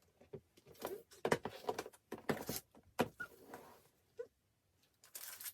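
Album packaging being handled: irregular rustling and crinkling of plastic and paper, with a few sharp clicks and knocks.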